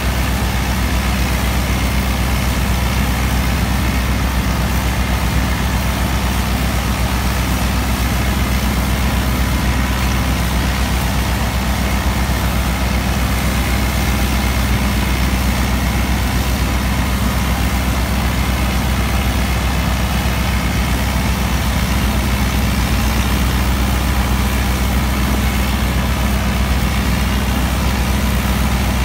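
New Holland Dabung 85 tractor's four-cylinder diesel engine running steadily under load, together with the PTO-driven wheat straw chopper it powers.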